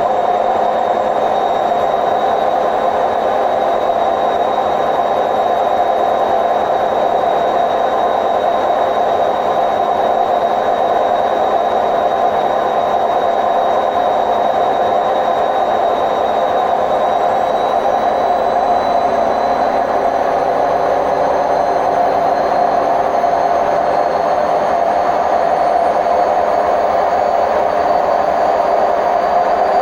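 Hotpoint WMF760 washing machine on its spin cycle, its drum running with a loud, steady rumbling roar from worn-out drum bearings. A thin high whine over the roar climbs slowly in pitch in the second half.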